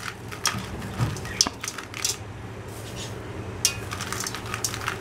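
Small gravel stones sprinkled by hand into a metal pot, clicking and rattling as they land on the gravel-and-salt bed in a few short scatters, over a low steady hum.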